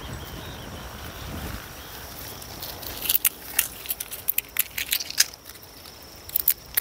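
Dry pigeon pea pods snapping and crackling as they are picked by hand from the bush: a quick, irregular run of sharp, crisp clicks starting about three seconds in. A low rumble fills the first second and a half.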